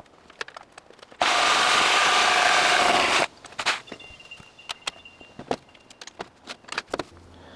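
A reciprocating saw (Sawzall) runs for about two seconds, cutting through the last bit of a birch log, and stops abruptly. Scattered knocks and clicks follow as the wood is handled.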